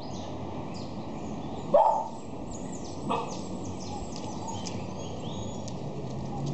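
A dog gives one short, loud bark about two seconds in and a weaker one about a second later, over many small birds chirping.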